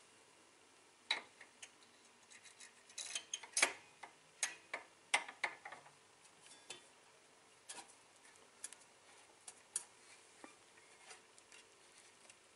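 Light metal clicks and clinks as flow control device parts are fitted by hand into the top of a Bezzera Unica espresso machine's chrome group head. They come irregularly, thickest a few seconds in, then sparser.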